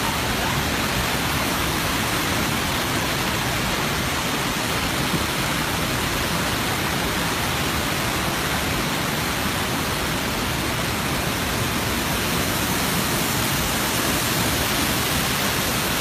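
Steady rush of water cascading over rocks at a waterfall.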